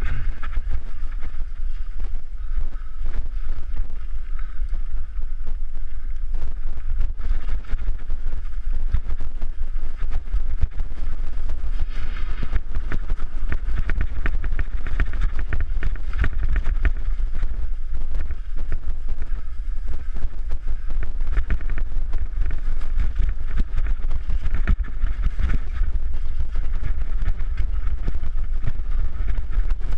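Wind buffeting a GoPro's microphone with a deep, steady rumble as a mountain bike rides fast down a rough, overgrown trail. A constant run of small knocks and rattles comes from the bike going over the bumpy ground.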